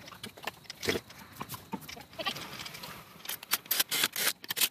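Lug nuts clicking and clinking as a wheel is refitted, then a cordless impact wrench running in short quick bursts, about three seconds in, to snug the lug nuts down.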